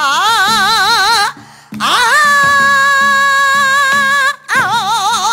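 A female pansori singer holding long sung notes with a wide, shaking vibrato. She breaks off briefly about a second in, then holds a long, nearly level note, breaks off again near the end, and returns to the shaking vibrato.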